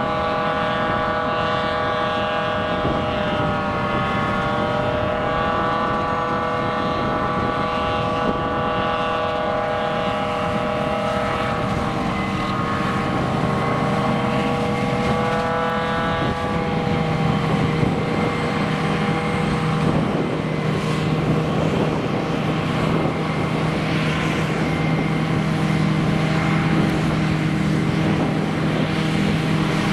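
Diesel farm machinery running steadily, with a high whine that wavers slightly in pitch; a deeper steady hum grows stronger about halfway through.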